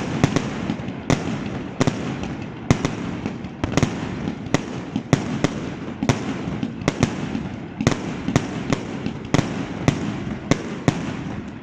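Fireworks going off: a rapid, irregular run of sharp bangs, two or three a second, over a continuous crackle.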